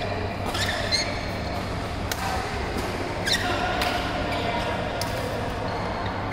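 A handful of sharp knocks or thuds at irregular intervals, about five, some followed by a short squeak, over a steady low background.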